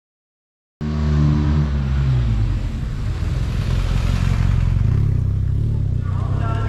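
Police motorcycle engine running close by as it rides past, cutting in abruptly about a second in, with a rushing noise that fades about five seconds in.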